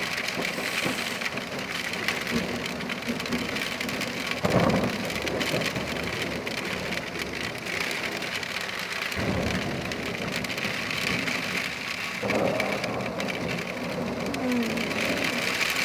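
Hailstorm: hail and rain pelting down steadily, with thunder rumbling three times, about four and a half, nine and twelve seconds in.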